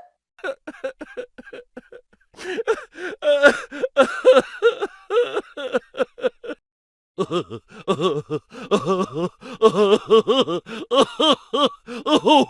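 Comedy sound-effect laughter: a short burst of giggling, then a longer stretch of rapid, pulsing laughter, and after a brief pause just before the middle another run of laughing.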